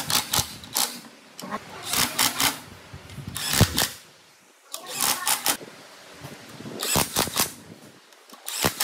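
Hitachi cordless impact wrench hammering bolts tight into an engine casing, in about six short bursts of rapid rattling clicks with brief pauses between them.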